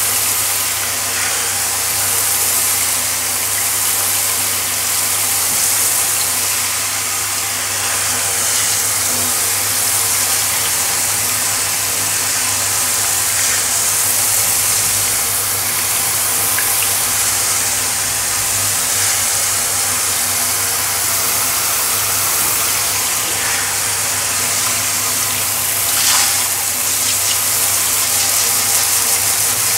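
Handheld shower head with a round brush attachment spraying water onto a tiled floor: a steady hiss of spray, with a steady low hum underneath.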